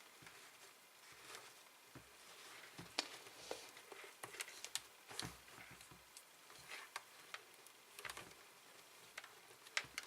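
Faint, irregular clicks, taps and rustles of hands working a microphone wire in behind a helmet's foam lining.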